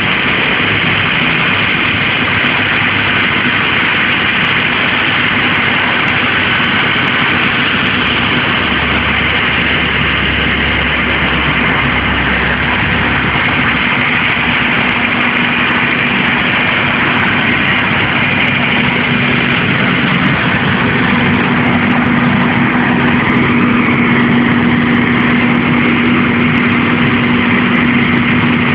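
Fire ladder truck's diesel engine running steadily with its aerial ladder raised. A steady hum in it grows stronger about two-thirds of the way through.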